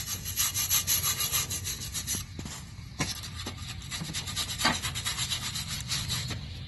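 Quick, repeated scraping strokes as caked grass clippings are scraped off the underside of a riding mower's cutting deck, with a brief lull a couple of seconds in.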